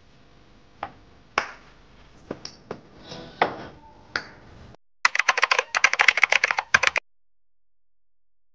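Glass spice jars with metal lids being set down on a wooden shelf: scattered light clinks and knocks. Then, after a short gap, a fast run of sharp clicks for about two seconds that cuts off suddenly.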